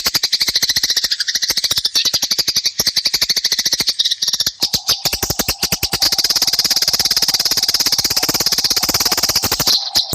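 Eurasian tree sparrows giving a rapid, unbroken run of harsh chirps, the agitated chatter of sparrows fighting.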